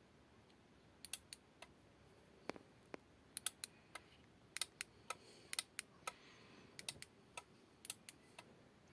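About two dozen small, sharp clicks at irregular intervals, as a new Takara X-100 car alarm that does not work is tried out.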